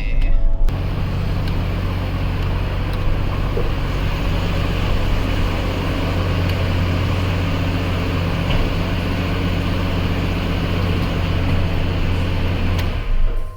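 1994 Jeep Grand Cherokee's 4.0-litre straight-six engine running steadily, freshly started after sitting all winter. The sound starts abruptly about a second in and stops abruptly near the end.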